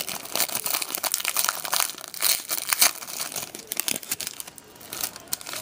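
Foil wrapper of an Upper Deck SPx hockey card pack crinkling and tearing as it is opened by hand: a rapid run of crackles that thins out near the end.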